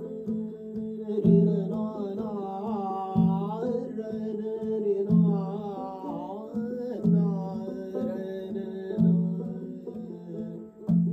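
Live acoustic music from a long-necked plucked lute and a bowed string instrument: a deep note sounds about every two seconds under a melody that slides and bends in pitch.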